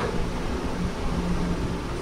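Steady low rumbling background noise with a faint hum that swells and fades, like a running fan or motor.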